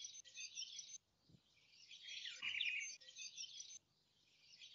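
Faint cartoon soundtrack of small birds chirping and twittering, thin and high with nothing in the low range, pausing briefly twice. About halfway through a short sound slides down in pitch.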